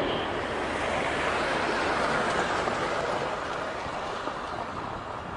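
Lockheed P-3 Orion's four turboprop engines in a low pass, heard as a steady, even roar that slowly fades as the aircraft flies away.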